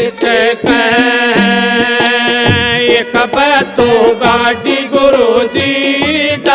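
Instrumental interlude of a Haryanvi folk bhajan: a sustained, ornamented melody over a drum beat, with no words sung.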